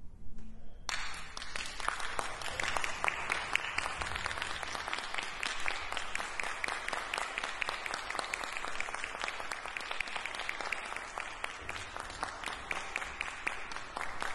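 Audience applause: steady clapping that starts suddenly about a second in, as the last held note of the music fades, and keeps going.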